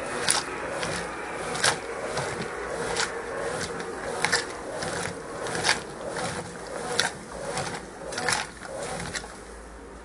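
Brastemp Ative 11 kg top-load washing machine agitating a load in soapy water with the lid open: steady churning and sloshing of water, with a sharper stroke about every second and a half as the agitator swings. The agitation eases off and the sound drops noticeably near the end.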